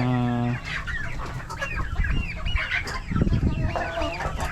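A flock of Rhode Island Red chickens clucking and calling, many short overlapping calls at once. A brief steady low hum sounds over them for about half a second at the start.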